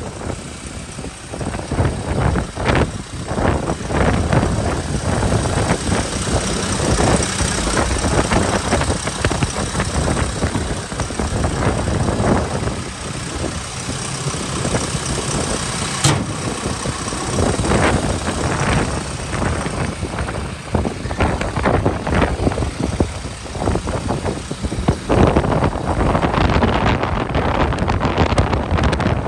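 Case 851FX backhoe loader's diesel engine running, with an uneven noise that rises and falls and a single sharp click partway through.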